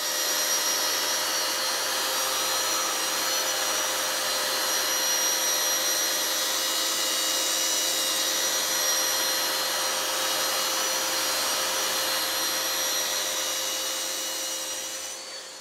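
A power tool motor running steadily, a whining hum with an even hiss over it, fading out near the end.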